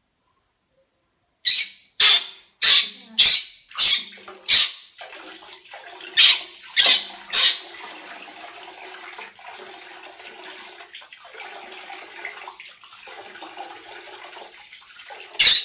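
Water splashing in a bathroom sink as a baby monkey is washed by hand: a quick run of about six splashes, three more a little later, then quieter sloshing water.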